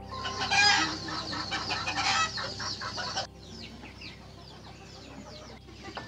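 Chickens clucking: a dense flurry of calls for about three seconds that cuts off suddenly, then fainter, high calls that fall in pitch.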